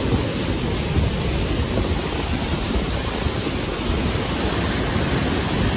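Waterfall rushing steadily as heavy water pours over a rock ledge into a pool.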